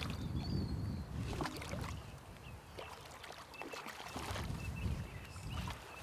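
A hooked carp splashing and thrashing at the surface as it is drawn over a landing net, the water slapping in short irregular bursts, loudest in the first couple of seconds.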